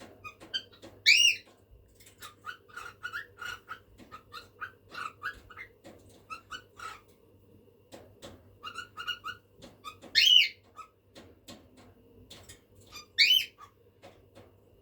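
Cockatiel tapping its beak in clusters of quick taps, with three loud chirps: one about a second in, one around ten seconds and one around thirteen seconds. The beak tapping is a display that, among cockatiels, only males make.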